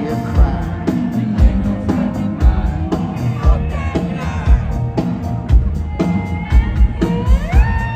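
Live rock band playing: drums on a steady beat, about two hits a second, under electric guitars, with a note bent up and held near the end.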